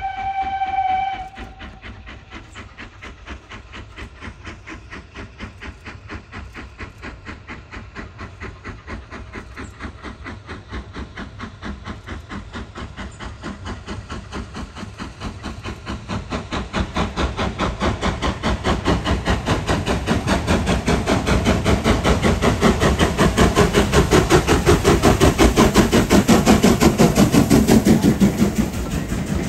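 A steam locomotive whistle sounds one steady note and stops about a second in. Then a steam locomotive works toward and past, its exhaust beats rapid and even, growing steadily louder and dropping away near the end as it passes.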